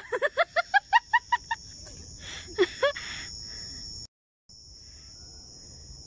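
A person laughs in a quick run of short 'ha' notes for about a second and a half, then twice more near the middle. A steady, high-pitched insect drone runs underneath. The sound cuts out for a moment about four seconds in.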